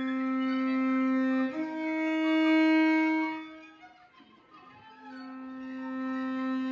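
Viola and cello improvising in long, held bowed notes. A single tone is held and steps up slightly about one and a half seconds in. It fades out after about three and a half seconds, and after a short pause a new held note swells in near the end.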